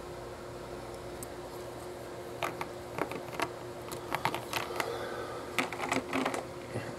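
Lego plastic pieces clicking and clattering as a built Lego model is handled and set down on a Lego baseplate: a string of small sharp plastic clicks and taps starting about two seconds in, more frequent near the end, over a faint steady hum.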